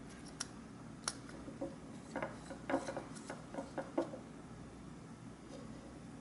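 Light clicks and taps of small plastic and metal parts: a drone gimbal's housing, circuit board and tiny screws being handled and fitted into place. They come scattered, with a quick run of them in the middle, over a faint low steady hum.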